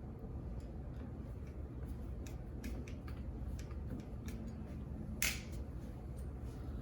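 Small scattered clicks and taps of metal door-knob hardware being handled and fitted while its screws are started, with one sharper click about five seconds in.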